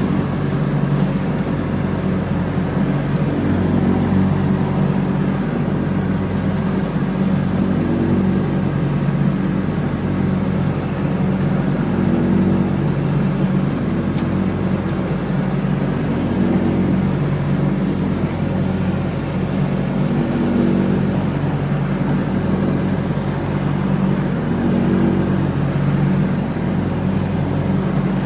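John Deere X304 riding lawn mower's engine running steadily at working speed, its hum swelling and easing slightly every couple of seconds.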